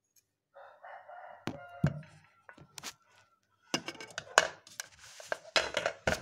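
A rooster crows once in the background, a pitched call of about a second and a half starting just after the beginning. Sharp knocks follow, then a busy run of knocking and clattering through the second half.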